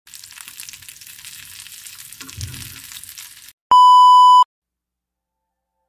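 Crackling sizzle of frying that cuts off after about three and a half seconds, then a loud, steady electronic beep lasting under a second: the test tone that goes with TV colour bars.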